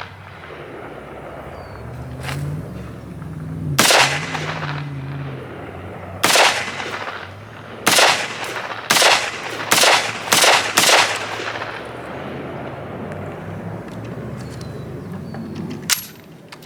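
AR-15 carbine with a bufferless bolt carrier group firing semi-automatic, each shot echoing: one shot about four seconds in, another about two seconds later, then five quick shots a little over half a second apart. The rifle is cycling and feeding with the bufferless bolt carrier group.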